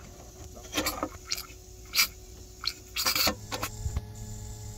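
Handling noises as the camper heater's antifreeze reservoir is opened: a series of sharp clicks, knocks and scratchy scrapes, about six in four seconds. Faint steady tones come in near the end.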